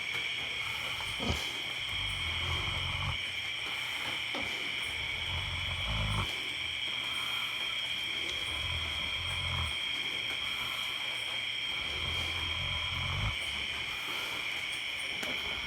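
Sleeping pigs snoring: a low rumbling snore about every three seconds, four times, under a loud, steady high chirring of night insects.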